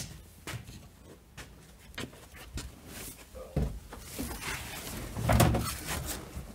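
Footsteps on a garage floor, then knocks, bumps and rustling as a person climbs into a car's driver's seat.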